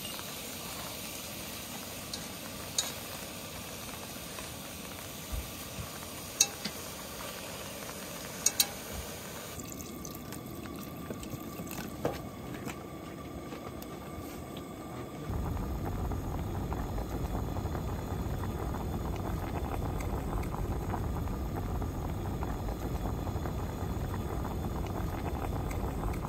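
A pot on a portable gas camp stove: a steady hiss of pork and kimchi frying, with a few sharp clicks of chopsticks against the pot. About fifteen seconds in it gives way to a louder, steady low bubbling noise as the kimchi stew boils.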